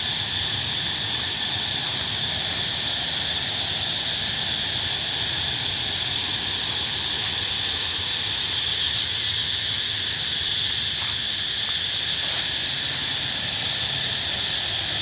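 A steady, shrill chorus of cicadas droning without a break.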